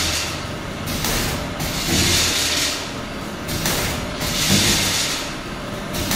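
Vertical form-fill-seal pouch packing machine running, with a rhythmic hissing surge and rumble about every two and a half seconds as it works through its fill-and-seal cycle.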